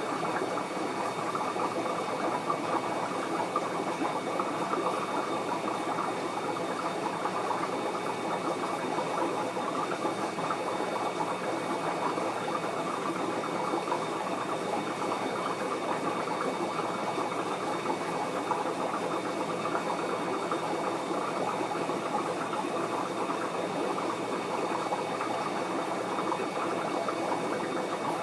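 Steady, unbroken water noise from an aquarium's recirculating system, with a few faint steady high tones above it.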